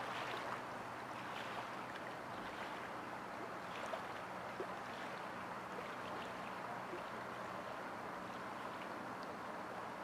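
Small waves lapping at the lake shore: a steady wash of water with light splashes and drips scattered through it. A faint steady low hum runs underneath.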